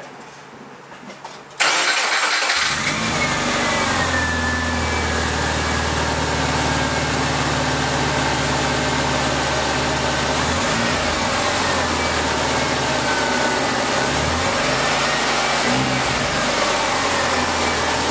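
Subaru Forester (SF5) flat-four engine starting about a second and a half in, then running steadily at idle, with a faint high whine that drifts in pitch above the engine note. The owner is asking what this weird noise is.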